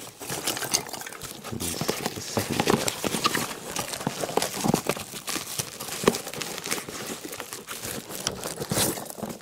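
Packaging being handled and pulled apart: irregular crinkling and rustling of paper and plastic wrap, with many small knocks and handling clicks.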